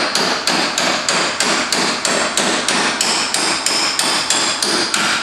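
Claw hammer striking the end of a steel bolt about three times a second in a steady run of ringing strikes. The blows drive the bolt through a golf cart's rear leaf-spring shackle.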